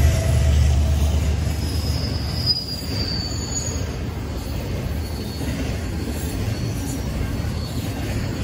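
Freight train of double-stack container well cars rolling past at speed, a steady rumble and clatter of steel wheels on the rails, with a brief high wheel squeal about two to three seconds in. The heavy low rumble of the just-passed locomotives dies away over the first two or three seconds.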